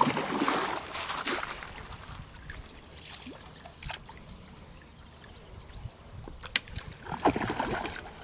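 Water trickling and splashing, with a few sharp clicks.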